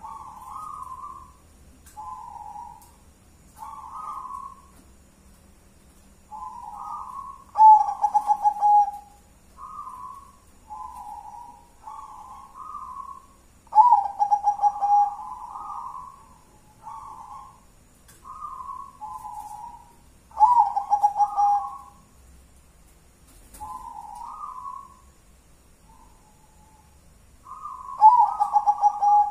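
Zebra dove (perkutut) cooing: a run of soft coo phrases, with a louder, pulsing song phrase about every six to seven seconds, four times in all.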